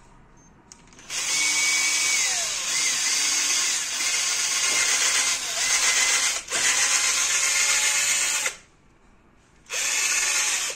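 Cordless drill boring into a hard plastic chair leg: it starts about a second in and runs for about seven seconds with a brief break partway, its motor pitch sliding down and up as the load changes, then stops and gives one short burst near the end.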